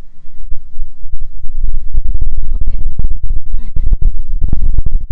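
Microphone buffeting: loud, irregular low thumping and rumbling that swells about a second in and stays heavy.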